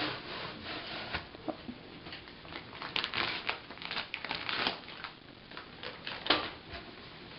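Packaging crinkling and rustling as a boxed toy is unpacked by hand: irregular crackles and rustles, busiest about three to five seconds in.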